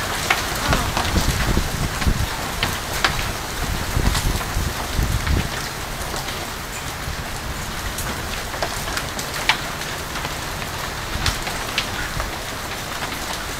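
Hailstorm with heavy rain: a steady hiss of falling hail and rain, broken all through by scattered sharp cracks of hailstones striking hard surfaces.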